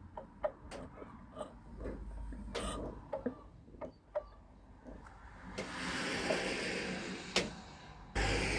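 Tohatsu 18 outboard motor running with a repeated knock, several sharp clicks a second. A louder, noisier stretch comes in about five and a half seconds in.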